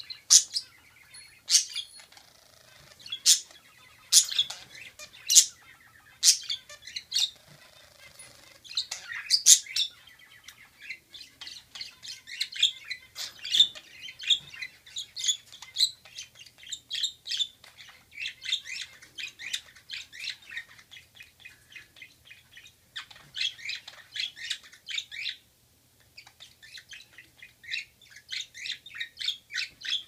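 Budgerigars chirping and warbling as a courting pair: loud, sharp single chirps about once a second at first, then a fast, continuous chattering warble for most of the rest, with a brief pause near the end.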